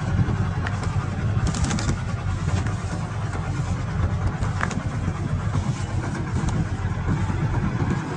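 Combine harvester's diesel engine running steadily under harvesting load, a constant low rumble with a haze of machinery noise over it.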